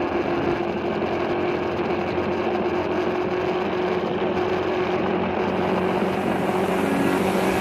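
Motorcycle engine running steadily at cruising speed while riding, under a continuous rush of wind noise on the microphone.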